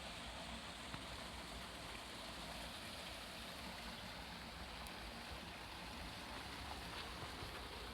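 Steady hiss of rain falling, with a few louder drops ticking now and then.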